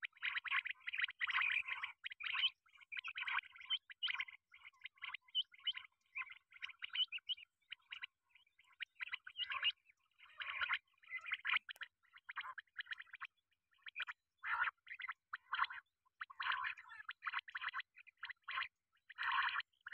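Quail calling in rapid rattling bursts, repeated over and over with short gaps.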